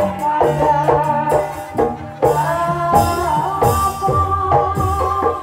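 Live Javanese folk music accompanying an ebeg dance: pitched struck notes and drumming, with a long held melody note through the second half.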